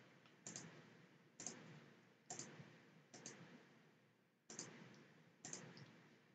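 Faint computer mouse clicks, six of them about a second apart, each a quick press-and-release pair, against near silence.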